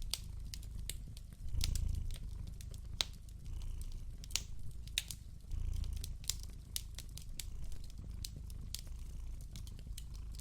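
A cat purring, a low rumble that swells and fades about every two seconds with its breathing, over a crackling fire with irregular sharp pops and snaps.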